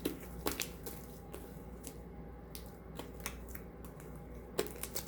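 Sticky shaving-foam and borax slime being kneaded and stretched by hand, making irregular small clicks and snaps.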